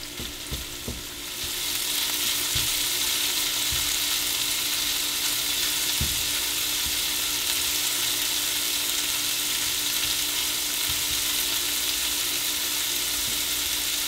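Diced pheasant breast sizzling as it fries in butter in a nonstick skillet, stirred with a spatula that knocks softly against the pan a few times. The sizzle swells about a second and a half in and then holds steady.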